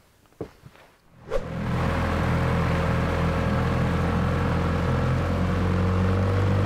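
A few faint clicks of steps on rocks, then, about a second and a half in, a petrol outboard motor on an inflatable boat running steadily under way, with a hiss of water and wind.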